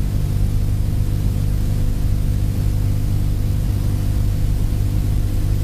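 Steady low electrical hum with an even hiss under it, unchanging throughout: the background noise of an old recording between spoken phrases.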